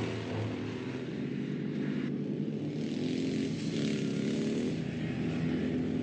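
Several motorcycle engines running hard, a lone motorcycle chased by sidecar motorcycles, their pitch rising and falling as they rev.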